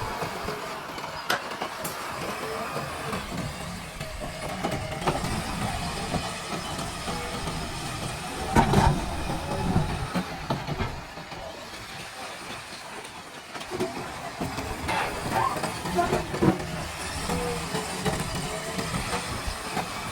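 JCB backhoe loader at work: the engine runs steadily under irregular metallic clanks and knocks, the loudest about nine seconds in and again around fifteen to sixteen seconds.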